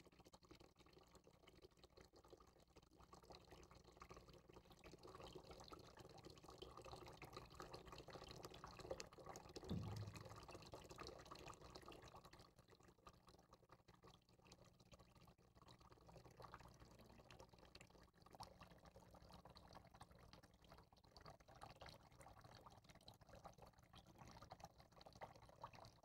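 Faint, steady sound of a thin water jet pouring from a tank's outlet tube and splashing into a container below, with a brief low thump about ten seconds in.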